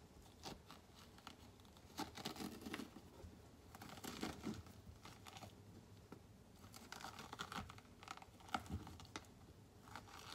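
A metal spoon scraping the seeds and stringy pulp out of a halved raw spaghetti squash: faint, irregular scraping and tearing strokes, a second or two apart.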